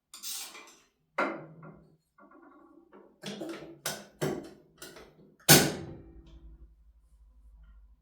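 A series of irregular knocks and clatters, as of objects being handled and set down, the loudest about five and a half seconds in with a brief ring after it, followed by a faint low hum.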